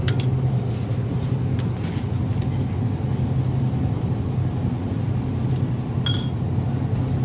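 Steady low hum inside a small grocery store. About six seconds in, a short ringing clink as glass liquor bottles knock together while being set into a plastic shopping basket.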